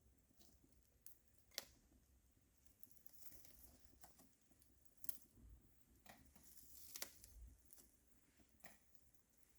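Near silence with a few faint scattered clicks and light rustling.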